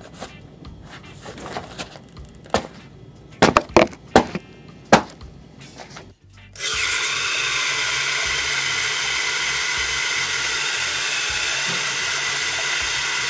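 A few sharp knocks and scuffs from a rubber clog being put on and stepped in. About six and a half seconds in, a faucet starts running steadily into a sink, filling a plastic water jar.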